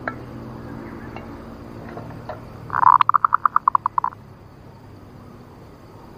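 Female zebra dove (perkutut) 'nutut ngerot' call, used as a lure for wild doves. About three seconds in comes one loud note, then a quick run of about ten short pulses lasting around a second.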